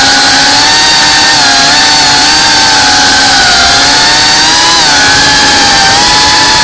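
FPV drone's brushless motors and propellers whining, heard from the camera on the drone itself, over a steady hiss of prop wash. The whine's pitch wavers up and down with the throttle as it flies.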